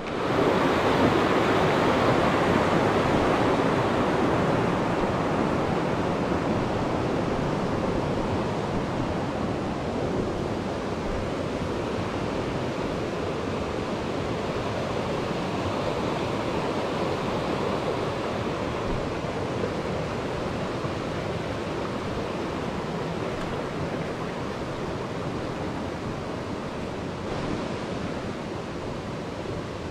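Steady roar of rushing water from a mountain creek, cutting in suddenly and slowly growing fainter.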